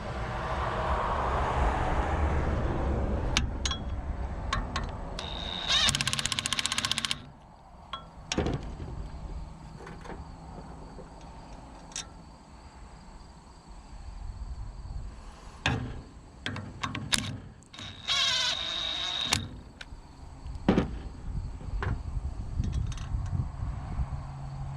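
Metal knocks and clanks from hand repair work on machinery, with two whirring bursts of a small power tool, each about a second and a half long, one early and one in the second half.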